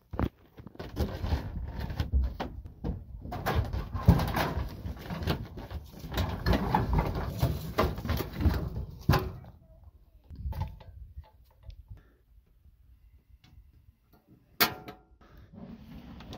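Metal barbecue grill being moved: a long stretch of clattering and scraping, then a few lighter knocks and one sharp clack near the end.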